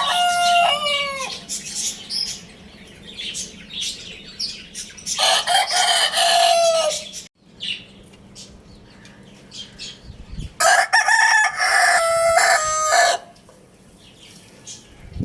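Rooster crowing: one crow trailing off near the start, then two more long crows about five and eleven seconds in, with quieter chicken calls between.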